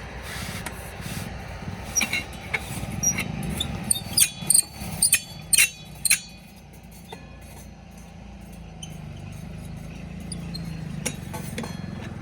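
JCB 3DX backhoe loader's diesel engine running steadily, with a run of about eight sharp metallic clanks in the first half.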